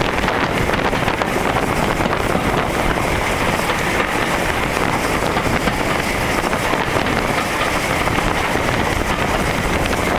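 Ivatt steam locomotive running along the line, heard from the cab side: a steady rush of wind on the microphone over the engine's running noise.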